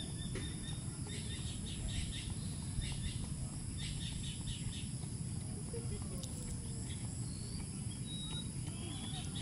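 Outdoor ambience of birds chirping in short bursts, over a steady high insect drone and a constant low rumble.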